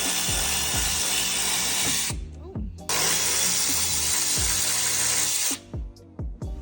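A power tool runs in two bursts of about two and two and a half seconds, removing the 17 mm and 19 mm bolts that hold the mustache bar and differential on the Datsun 280Z. Background music with a bass-heavy beat plays underneath.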